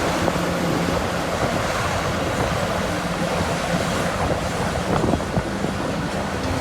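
Steady rush of water spraying as mud is washed off a toy excavator.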